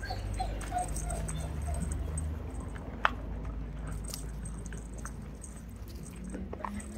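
Shar Pei puppies play-fighting, giving a few short, faint squeaks and whimpers in the first couple of seconds. A single sharp click about three seconds in.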